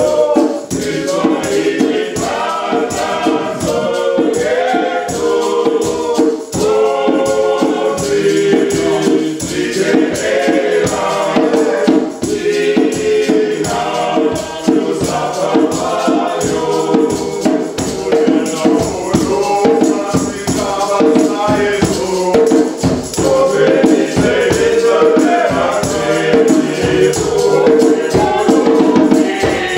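A small group singing together in several voices, accompanied by a djembe and a tambourine with a steady beat.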